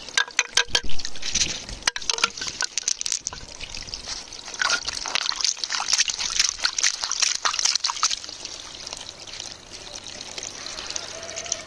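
Water trickling and splashing, with many sharp clicks and knocks through the first eight seconds or so, then a steadier trickle.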